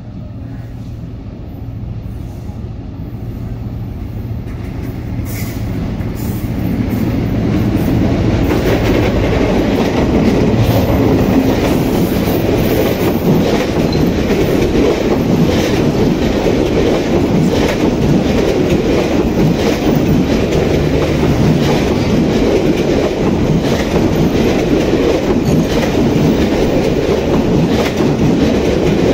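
A Bangladesh Railway passenger train passing close by: it grows louder over the first eight seconds or so as it approaches, then the coaches roll past with a dense rattle and the clickety-clack of wheels over the rail joints.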